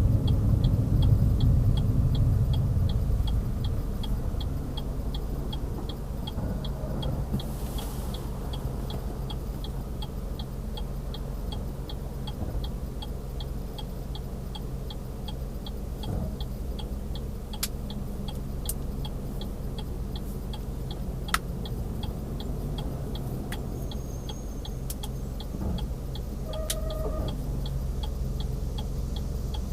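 Car turn-signal indicator ticking steadily, about twice a second, inside the cabin over low engine and road rumble. The rumble eases in the first few seconds as the car slows.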